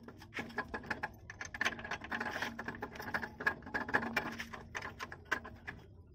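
Rapid, irregular clicking and rattling of metal parts as an alternator is worked back into place on a truck's diesel engine by hand, over a steady low hum.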